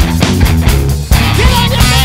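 Live rock band playing a loud, driving song with drums, guitar and a singer at the microphone. The band cuts out for a split second about a second in, then crashes back in.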